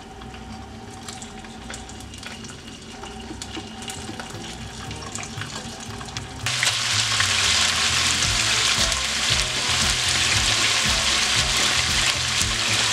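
Pieces of pressure-cooked pork rib sizzling as they are laid into hot oil in a frying pan to brown, with a few light clicks. About halfway through, the sizzle suddenly becomes much louder and stays loud and steady once the pan is full of frying meat.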